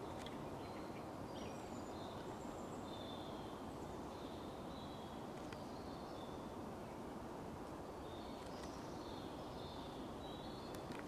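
Steady woodland background hiss with a songbird singing short, high phrases, in a run during the first few seconds and again from about eight seconds in.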